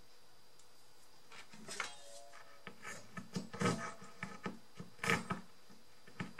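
Small irregular clicks, taps and scraping of craft pieces and tools being handled on a tabletop, starting about a second in, with a sharper knock near the end.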